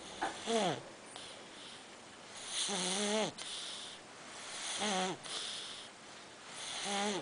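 Pug snoring: four pitched snores about two seconds apart, each with a breathy hiss, the first one sliding down in pitch.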